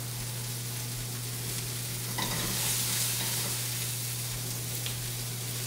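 Cherry tomatoes blistering in oil in a hot frying pan, sizzling steadily over a low hum. The sizzle swells a little about two seconds in.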